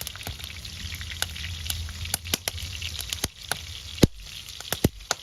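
Wood fire crackling, with irregular sharp pops from the burning wood, the loudest pop about four seconds in.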